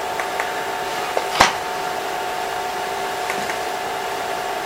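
Steady room hum with several constant tones under it, and a single sharp click about a second and a half in.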